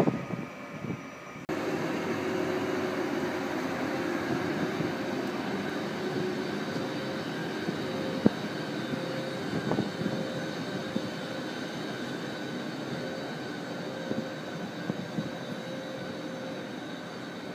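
Siemens Vectron electric locomotive standing with its cooling fans and electrical equipment running: a steady whir with faint steady tones and a tone that pulses on and off about once a second. A single sharp knock comes about eight seconds in.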